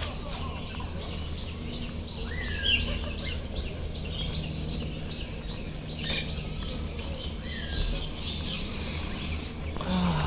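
Many birds chirping and calling together, with a clear call that rises then falls about two seconds in and again near the end, over a steady low background noise.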